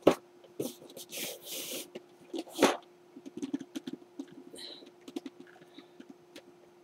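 A board game's box and pieces being handled on a desk: sharp clicks and knocks, a short scraping rustle about a second in, and a run of small light ticks in the second half.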